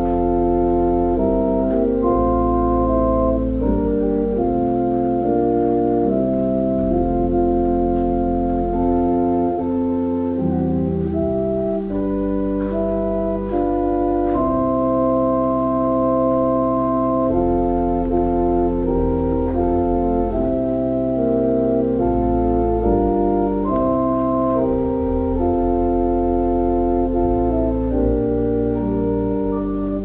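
Organ playing a slow piece in sustained chords that change every second or two, over held low pedal notes.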